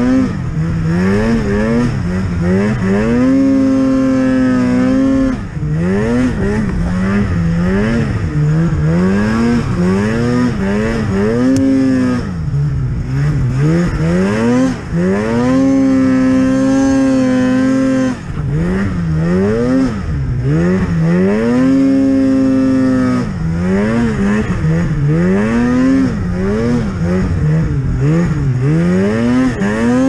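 Polaris Axys snowmobile's two-stroke engine revving up and down again and again as the throttle is worked through deep powder, with a few held stretches at high revs and brief drops when the throttle is let off.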